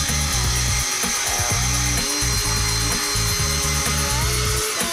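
Electric drum grater (Moulinex Fresh Express) running steadily as it shreds zucchini, its motor giving a high whine, with background music playing underneath.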